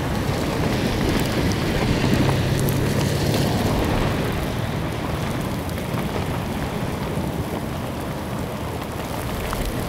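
Heavy rain in gusting wind: a steady rushing noise with a deep rumble, a little louder about two to four seconds in. Cars are swishing along the wet road.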